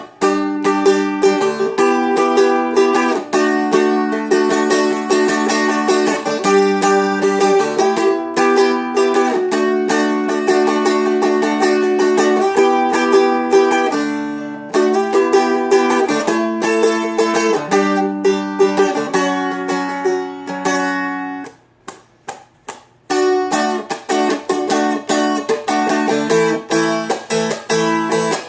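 Seagull Merlin, a four-string fretted dulcimer-style instrument, strummed steadily with the chords changing every second or two. The playing drops to a few soft, damped strokes for about a second and a half, about three-quarters of the way through, then picks up again.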